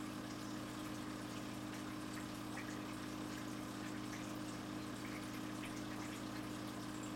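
Large home aquarium's pump running with a steady low hum, with the faint trickle and small pops of air bubbles rising through the water from an air stone.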